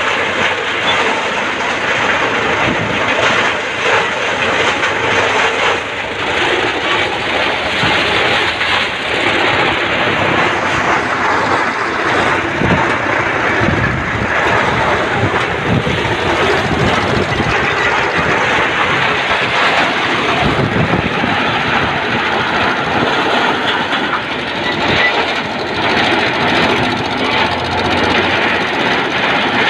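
Tractor-powered chaff cutter running loud and steady under load as dry stalks are fed in, its blades chopping them and its blower throwing out the cut fodder, with the tractor's engine running underneath.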